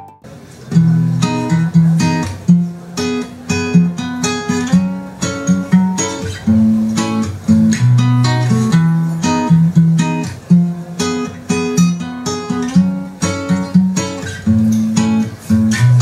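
Music: an acoustic guitar strumming chords in a steady rhythm, without vocals.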